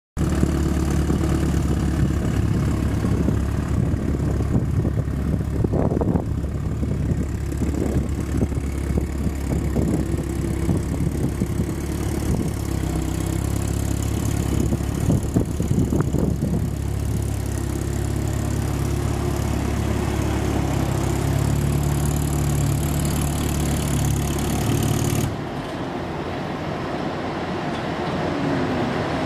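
1959 Triumph TR3A's four-cylinder engine idling steadily. The low idling note cuts off abruptly near the end.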